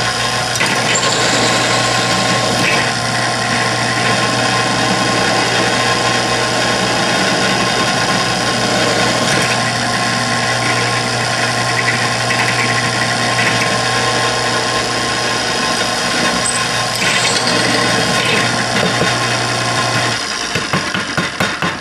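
Drill press running with a 7/32-inch bit cutting holes through a thin steel plate, a steady motor hum under the grinding of the bit in the steel. About twenty seconds in the motor is switched off and the sound dies away.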